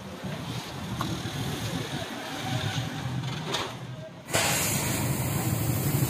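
A few faint taps over a low background, then, about four seconds in, a gas cutting torch starts abruptly: a loud, steady hiss over a low rumble from the flame as it is set to cut steel plate.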